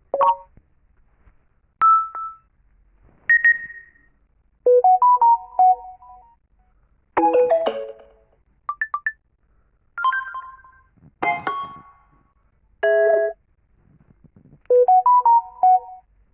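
Samsung Galaxy A20s built-in alert tones played one after another: about ten short electronic chimes and jingles, each a different brief melody, with short pauses between them.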